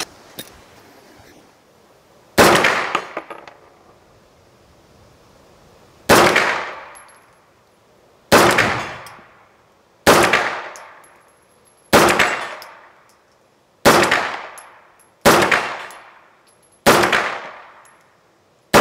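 A Schmeisser AR15-9 Sport 9 mm semi-automatic carbine fired in slow, aimed single shots: eight shots at uneven gaps of about one and a half to four seconds. Each report is followed by an echo that dies away over about a second.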